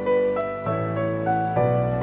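Slow, gentle instrumental music: a melody of single notes over held low notes, the low note changing twice.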